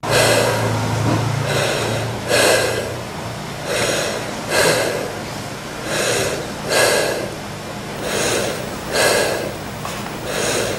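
A person lying down breathing heavily and audibly, inhale and exhale alternating about once a second in a steady rhythm.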